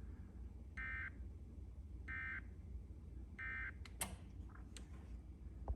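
Emergency Alert System end-of-message data signal: three short bursts of digital data tones, evenly spaced a little over a second apart. Near the end come two sharp clicks, over a low hum.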